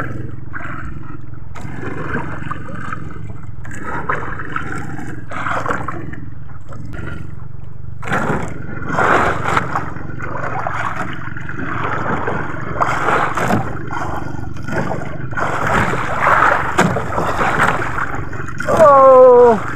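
Wind and sea noise around a small outrigger boat, with irregular splashing as a handline is hauled in and a hooked fish splashes at the surface. Near the end, a man gives a loud drawn-out cry that falls in pitch.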